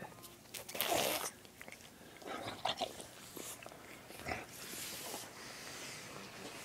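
A dog making a few short snuffling, snorting noises while its head is rubbed.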